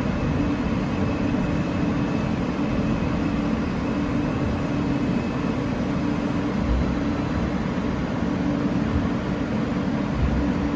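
Interior running noise of an Alstom R160A New York City subway car rolling into a station: a steady low rumble and hiss. A faint high whine is heard through about the first half.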